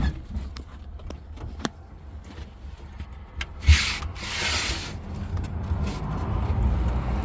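Handling noises in and around a Bobcat 116 mini excavator's cab before a cold start: scattered clicks, a sharp knock about four seconds in, then about a second of rubbing or scraping, over a steady low rumble. The engine is not running yet.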